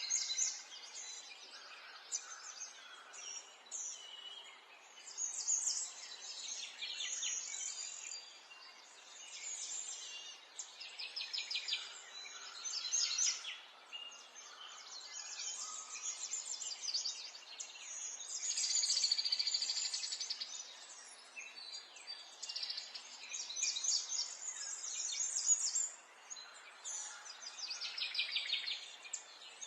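Many small birds chirping and trilling together over a faint steady background hiss, the calls overlapping in quick rapid series throughout.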